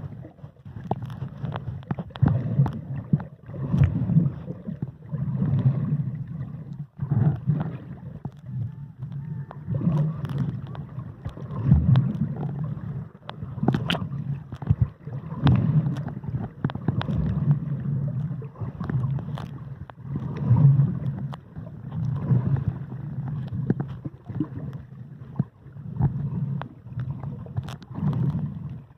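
Muffled underwater noise heard through a submerged camera: a low rumbling wash of moving water that swells and fades every second or two, with scattered clicks and knocks.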